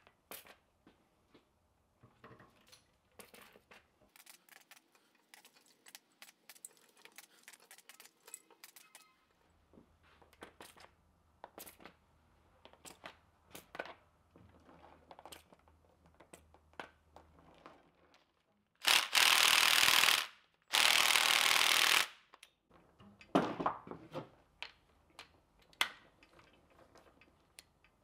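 Scattered clinks and knocks of rusty chain links and cast-iron parts on a Wright Model 45 screw chain hoist as it is handled and worked with a wrench. About two-thirds of the way in come two loud, steady hisses of about a second and a half each, a short gap between them.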